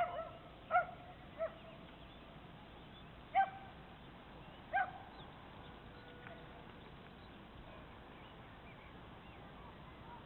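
A dog barking five times in short, sharp barks over about five seconds, then only faint background hiss.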